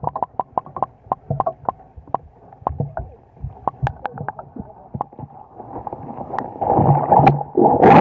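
Fan boat (airboat) engine running low under a rapid, irregular series of sharp clicks and knocks. It grows louder and rougher about seven seconds in.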